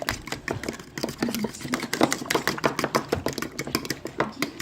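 Eggs being beaten in a bowl: a utensil clicking rapidly and unevenly against the bowl's side.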